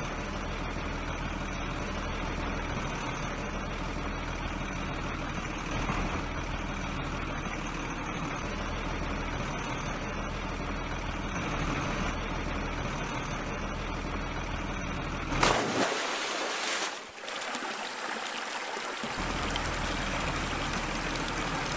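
Truck engine running steadily, a dubbed sound effect for a toy truck. About three quarters of the way through, the engine gives way for a few seconds to a louder hiss, then comes back.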